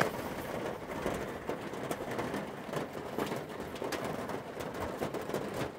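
Steady rain falling, with many small raindrop clicks.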